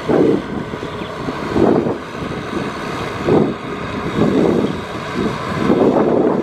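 Kubota tractor's diesel engine running under load while its rear rotary tiller churns through flooded paddy mud. The sound swells and eases irregularly, every second or so.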